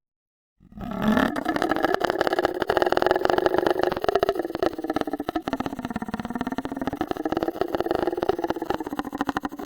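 A person making a long, rattling buzz with rapid pulses, starting after a brief silence, rising a little in pitch at first and then holding steady for about nine seconds.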